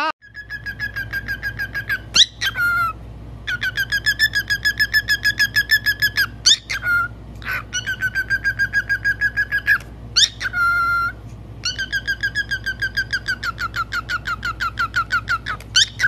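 Cockatiel calling: runs of rapid chirps at one steady pitch, about eight a second, each run lasting two to three seconds. Short rising whistles break up the runs.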